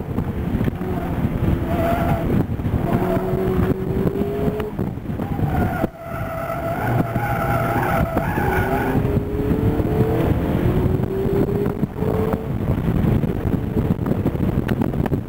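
Mazda MX-5's four-cylinder engine running hard at high revs while its tyres squeal in long, wavering tones through hard cornering on the autocross course. The engine pulls at full throttle near the end. Heard from inside the open cockpit.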